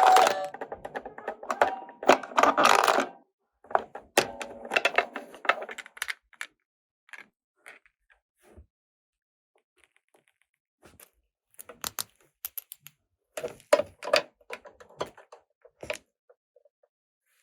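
Plastic toy pieces and packaging being handled: rustling and clattering for the first few seconds, then scattered light clicks and taps.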